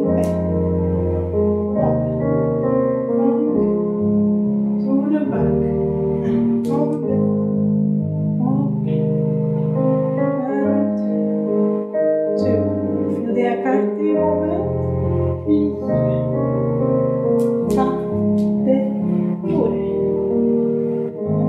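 Slow piano music with sustained chords changing every second or two: ballet class accompaniment for a fondu and adagio exercise.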